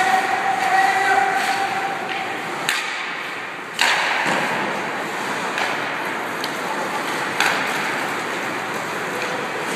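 Ice hockey play in an indoor rink: skates scraping on the ice under a steady hiss, broken by several sharp cracks of sticks and puck, the loudest about four seconds in.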